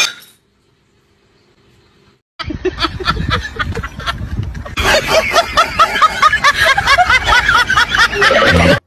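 A person laughing hard. The laughter starts about two and a half seconds in, becomes a rapid, high-pitched run of laughs about five seconds in, and cuts off abruptly near the end.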